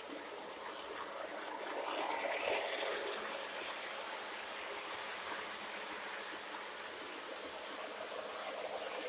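O gauge model freight train rolling past on its track: a steady rushing whir of wheels and motor, louder about two to three seconds in as the cars pass close.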